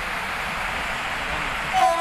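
Steady rushing noise of an approaching train. Near the end a locomotive horn blows with a sudden loud start.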